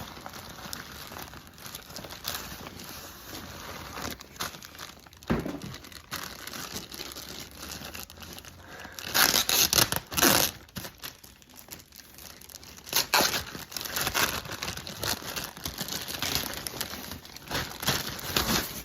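Packaging of an infrared sauna blanket crinkling and rustling as it is unwrapped, in irregular handling noises with the loudest bursts about nine to ten and a half seconds in and again around thirteen seconds.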